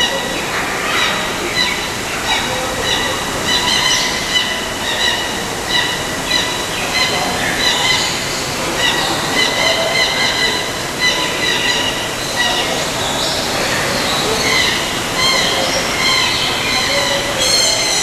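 Many birds chattering and chirping in an indoor rainforest aviary: dense, overlapping shrill calls over a steady background hiss.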